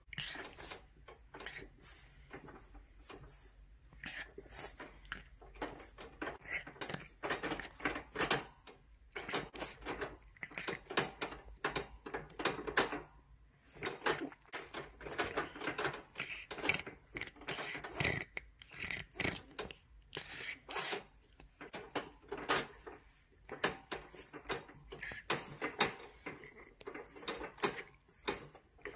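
French bulldog puppy licking and mouthing the latch of a wire crate door, rattling the metal latch and bars in irregular clicks and clanks, with wet licking between them.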